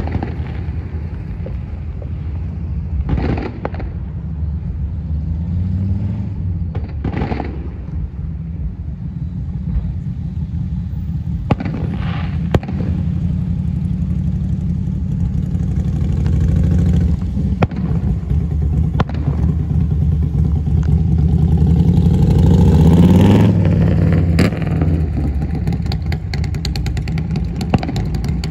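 Distant fireworks going off every few seconds as single booms over a steady rumble of vehicle engines. A vehicle passes close by, rising in pitch and loudness to a peak about three-quarters of the way through and then falling away.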